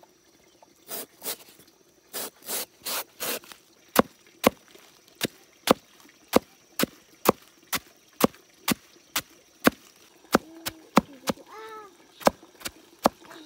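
Chopping on wood with a blade: a few longer scraping strokes at first, then sharp, even strikes about two a second. A brief pitched call is heard near the end.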